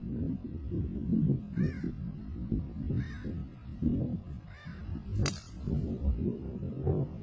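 A driver strikes a teed golf ball with one sharp crack about five seconds in. Before it, a bird gives three short caws. A low rumble runs underneath.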